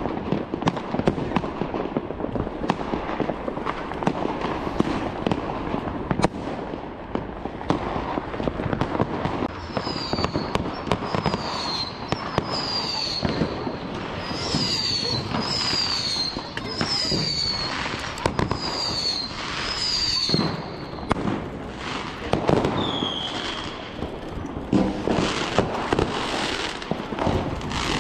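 Fireworks and firecrackers going off all around in a dense run of bangs and crackles. From about a third of the way in, a string of short falling whistles comes about once a second for some ten seconds.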